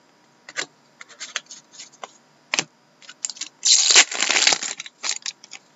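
Trading cards being handled with scattered light clicks and rustles, then a foil trading-card pack wrapper torn open and crinkled for about a second, the loudest part, a little past halfway, followed by a few more light clicks.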